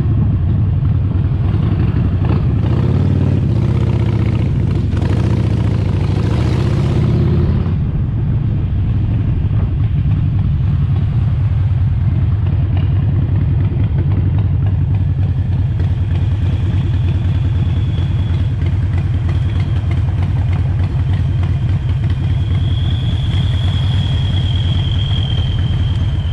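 Harley-Davidson Sportster 48's air-cooled V-twin running under way. Its pitch rises and falls for the first few seconds with a rush of wind, then it settles into a steady, even cruise.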